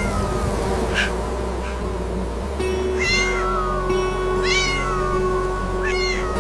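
A cat meowing several times in short rising-then-falling calls, about one every second and a half, over soft background music.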